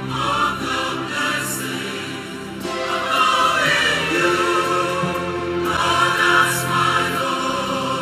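Large church choir of women and men singing a gospel worship song, with sustained, held notes.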